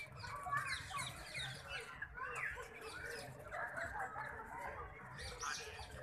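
Several birds chirping and twittering in a continuous, fairly faint chatter of short calls, with a few longer downward-sliding calls standing out now and then.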